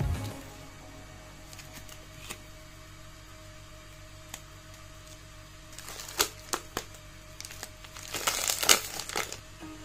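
A chocolate bar's wrapper being torn open and peeled back by hand, crinkling and crackling. There are scattered small crackles, a few sharper ones about six seconds in, and a louder run of crinkling near the end as the inner foil-lined paper is pulled away.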